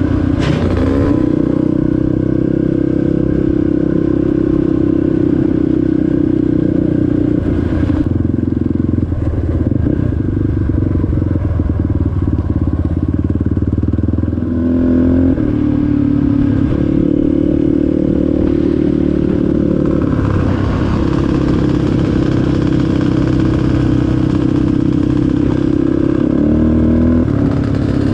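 Off-road vehicle engine running steadily under way during trail riding. Its pitch steps down and back up about halfway through and again near the end, as with gear changes or throttle changes.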